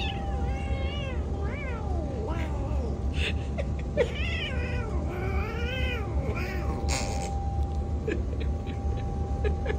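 Domestic cat meowing over and over: about half a dozen drawn-out meows, each rising and then falling in pitch. A steady faint hum runs underneath, and there is one sharp click about seven seconds in.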